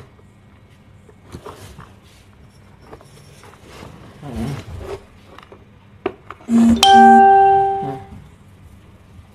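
A loud electronic chime about two-thirds of the way in: two short low notes, then a held, bell-like tone that fades out after about a second. Faint rustling and handling noises fill the rest.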